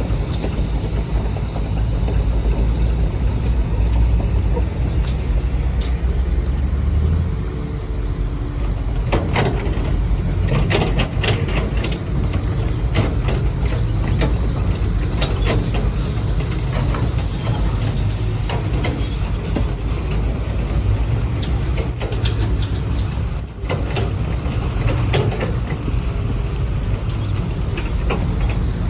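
Homemade radio-controlled hydraulic construction machines working: a steady low motor and pump hum whose deepest part drops away about seven seconds in, with scattered sharp clicks and knocks from about nine seconds on.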